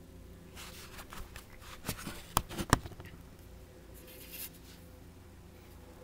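Light handling noises, scraping and rustling, with two sharp taps about two and a half seconds in, over a faint steady hum.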